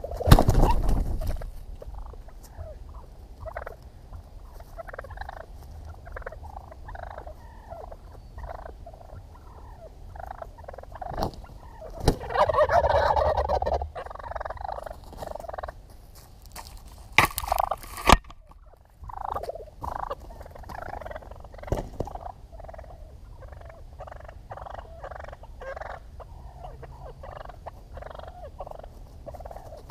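Wild turkey toms gobbling and calling again and again, with a long gobbling outburst about twelve seconds in. There is a loud thump at the very start and a few sharp knocks a little past halfway.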